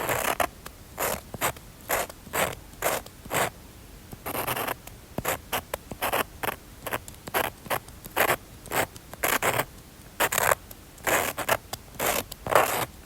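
Scratchy strokes of a drawing tool on paper, about one or two a second, some quick and some drawn out longer.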